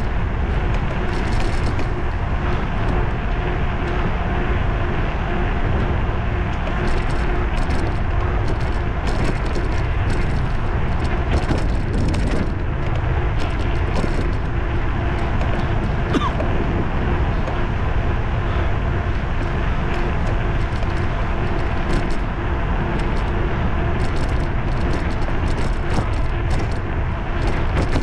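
Steady wind rush and rumble on the camera's microphone while riding an electric bicycle, with tyre and road noise, a faint steady hum and scattered small rattles.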